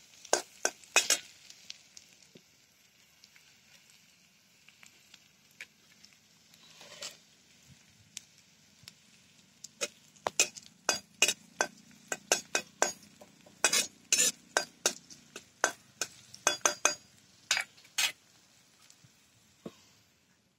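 Metal spatula scraping and clinking against a metal kadhai as chopped onions and chillies are stirred in hot oil, with a faint sizzle between strokes. The strokes come in a few quick clicks at first, thin out for several seconds, then come fast and close together through most of the second half.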